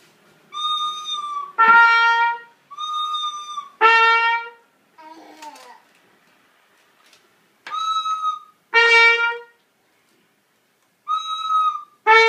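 Trumpet playing a repeated two-note figure: a softer, held high note followed by a louder, shorter lower note, four times with pauses between.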